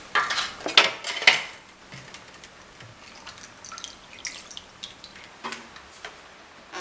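A glass bowl knocks and clinks several times in the first second and a half, as it is set down and gelatin sheets go into it. Then cold water pours from a plastic bottle into the bowl with faint splashing and drips.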